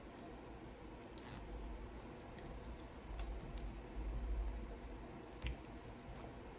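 Close-miked wet chewing and squishing mouth sounds of someone eating soft barbecue chicken and mashed potatoes, with scattered small clicks and a sharp bump near the end.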